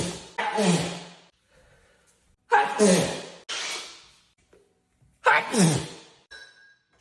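A woman sneezing over and over in a sneezing fit: several loud sneezes in quick succession, some coming in pairs, with short silent gaps between them.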